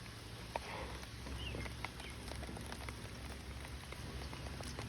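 Rain falling steadily, with single drops tapping at irregular moments over an even hiss.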